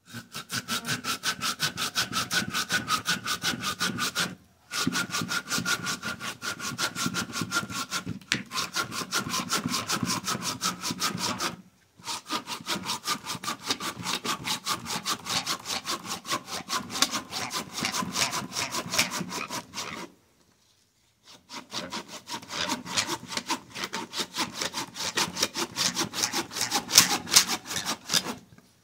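Hand saw cutting through wood in quick, steady back-and-forth strokes. The sawing comes in several runs with brief pauses, the longest about two-thirds of the way through.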